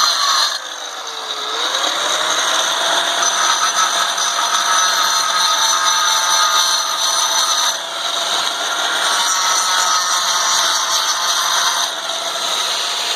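Angle grinder cutting through ceramic tile: the motor's pitch drops as the blade bites about half a second in, then climbs back and holds steady under a loud grinding hiss. The cut eases off briefly near the middle and again near the end.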